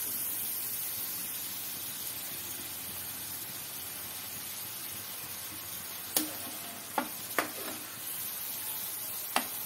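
Chopped green onions sizzling steadily as they fry in ghee in a pan, with four sharp knocks of the stirring utensil against the pan in the second half.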